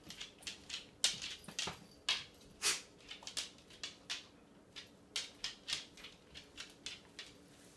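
A dog's claws clicking and tapping on a hardwood floor as it walks about, an irregular run of light clicks, a few a second.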